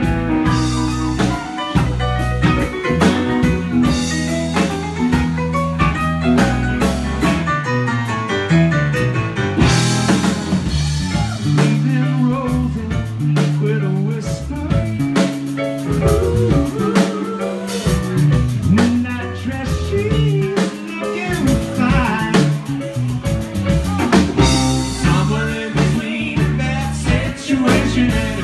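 Country band playing an instrumental break: guitar over a moving bass line and a steady drum kit beat.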